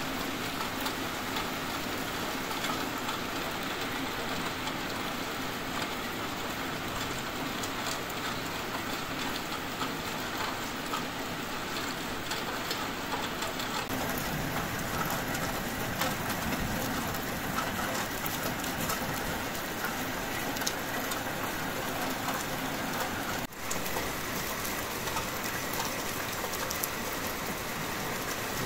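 Steady heavy rain falling, a dense hiss with many fine drop ticks. It briefly drops out about two-thirds of the way through, then carries on.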